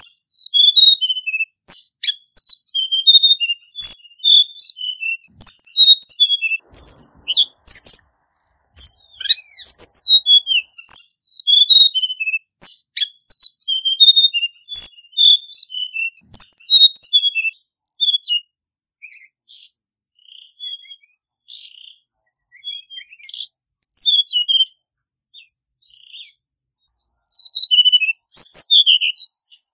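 Male hill blue flycatcher singing: quick phrases of short, high, clear notes, many tumbling downward in pitch, one after another. The song goes softer and sparser for a while past the middle, then loud again near the end.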